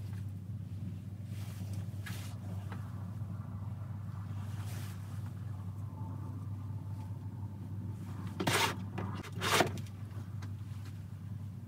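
Fabric rustling as base-layer clothing is handled and laid out on a padded mat, with two louder brushing rustles about a second apart near the end. A steady low hum runs underneath.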